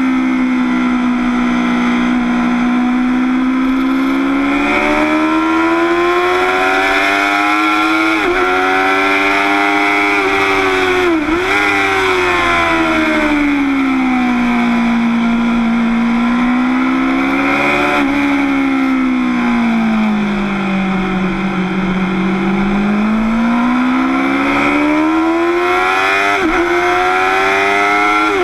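Motorcycle engine heard onboard at track speed. Its pitch rises and falls in long sweeps with the throttle, broken by about four sharp brief dips at gear changes, over a constant rush of wind noise.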